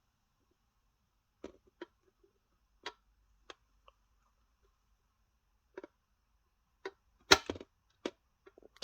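Small wrench tightening the mounting nut on a battery clock movement: scattered light metal clicks and taps at irregular intervals, with one sharper knock a little past seven seconds in.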